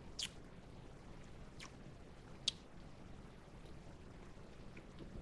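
Faint wet mouth clicks and lip smacks, three of them spread over a few seconds, from someone tasting a sip of a fruit-punch drink.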